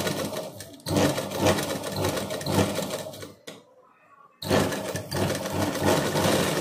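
Sewing machine stitching a folded collar band, running in two spurts: it runs, dips briefly about a second in, stops at about three and a half seconds, then starts again about a second later.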